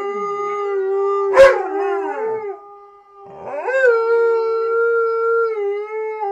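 A malamute and a husky howling together: a long, steady howl with a sharp louder note about a second and a half in, a short break around three seconds, then a second long howl that drops in pitch near the end.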